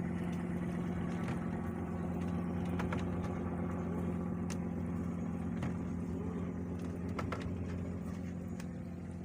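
Fishing boat's engine running with a steady low drone, a few light knocks over it, fading slightly near the end.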